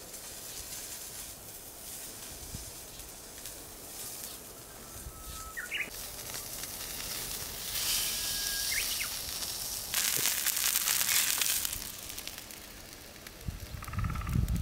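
Wagyu tri-tip steak sizzling on a hot flat-top griddle, a steady crackling hiss that swells louder about eight seconds in and is loudest around ten to twelve seconds.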